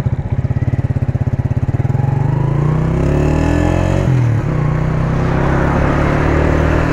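Honda CG 125's single-cylinder four-stroke engine pulling away and accelerating: a slow pulsing beat at first, rising in pitch over the first three seconds, then a sharp dip in pitch about four seconds in at a gear change, after which it runs on steadily.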